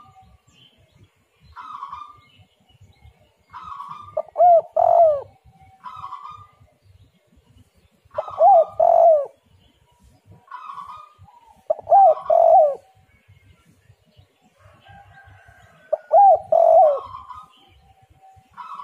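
Spotted dove (tekukur) cooing: four phrases about four seconds apart, each ending in two loud, bending coos, with fainter calls between them.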